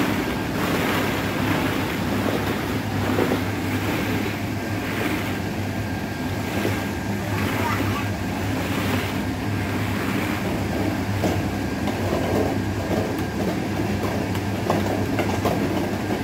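Steady drone of rushing air over a constant low hum from the air blower that drives a ball pit's ball-launching pipes, with occasional light clatter of plastic balls.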